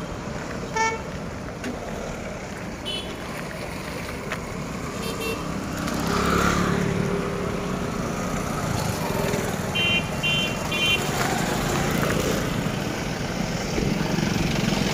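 Street traffic noise of motorcycles, cars and auto-rickshaws with a crowd, growing louder about six seconds in. Short vehicle horn toots sound through it, including three quick beeps close together near the two-thirds mark.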